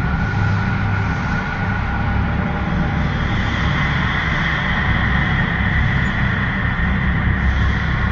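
Temple ambience sound effect: a steady low rumble under sustained ringing tones, with a brighter, higher tone coming in about three seconds in.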